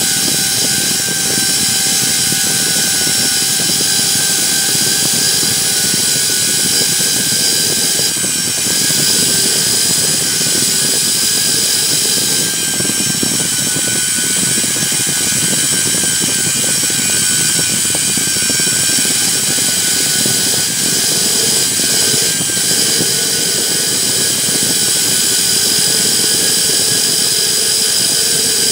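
An electric drill spinning a wire wheel brush, scrubbing rust off the rusty steel tang of an old screwdriver. A steady, loud motor whine and wire-bristle hiss that runs without a break.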